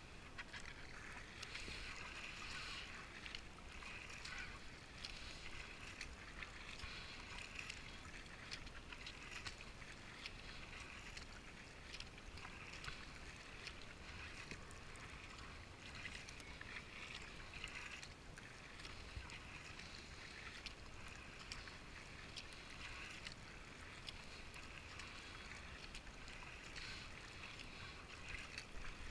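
Kayak paddle strokes splashing into the water every second or two, with water washing along the hull and small drips and ticks in between.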